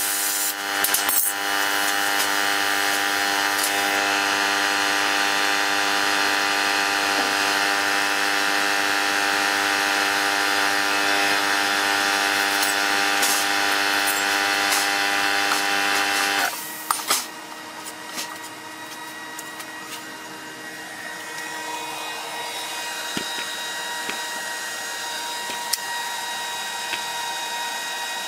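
Handheld plasma cutter cutting sheet steel: a steady hiss with a whine that stops abruptly about 16 seconds in, after which a quieter steady rush of air continues.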